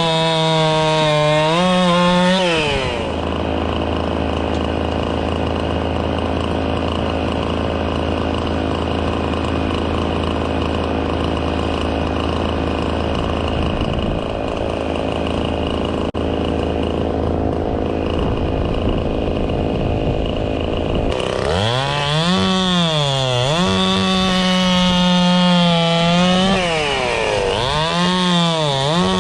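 Gas chainsaw cutting apple wood into short lengths. The engine runs high for the first couple of seconds, then holds a lower, steady note for a long stretch, and from about 21 seconds in revs up and down several times.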